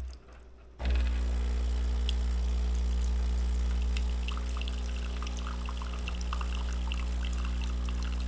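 Ultima Cosa espresso machine's pump humming steadily as hot water is run through the empty group head to preheat it, with water pouring and splashing out. The pump stops briefly just after the start, then runs on.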